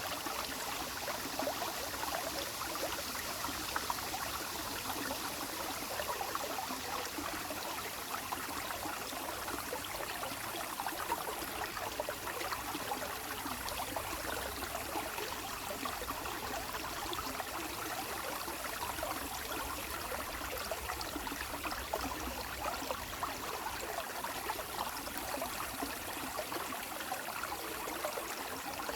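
Water flowing and trickling steadily, a continuous burbling like a small stream.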